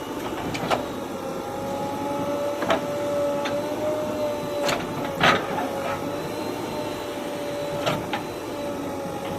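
Bulldozer running with a steady high whine, and about five sharp metallic knocks at irregular intervals.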